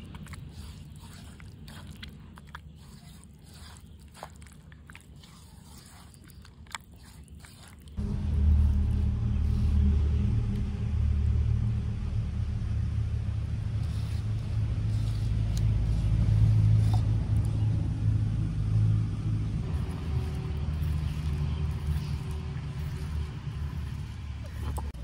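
Soft squelches and clicks of a hand mashing a wet eggplant filling in a small clay bowl. About eight seconds in, a loud, steady low rumble comes in suddenly and covers everything else.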